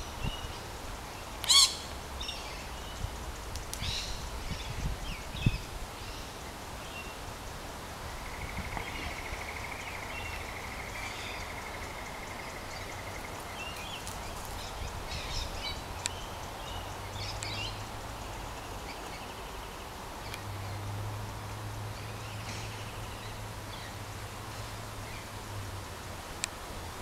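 Birds calling at intervals outdoors, the loudest call about a second and a half in. An even, high trill lasts about five seconds midway, and a low hum runs through the later part.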